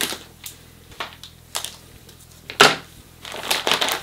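Scissors snipping through the top of a plastic spawn bag in a few short cuts about half a second apart, then the plastic crinkling as the bag is handled, with the loudest rustle about two and a half seconds in.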